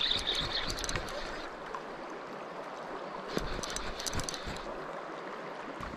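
River water flowing and lapping close to the microphone as a steady rushing, with a few brief clicks about a second in and again around three to four seconds.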